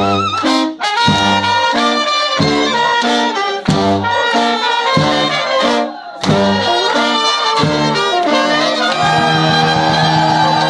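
Romanian Gypsy brass band playing live: trumpets over a pulsing bass line from low brass horns, in short punchy chords with a few brief breaks, settling into long held notes near the end.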